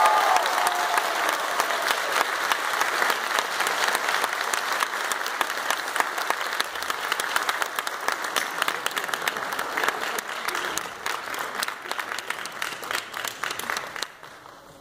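Audience applauding, a dense patter of many hands clapping that gradually thins out and dies away shortly before the end.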